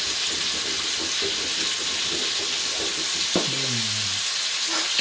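Pieces of nutria frying in rendered internal fat in a pan: a steady sizzle. About three and a half seconds in, a man's voiced exhale falling in pitch, just after a shot of wheat spirit.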